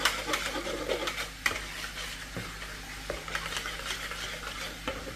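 Wire whisk beating eggs in a plastic bowl: quick, uneven clicking strokes against the bowl with a wet swishing in between.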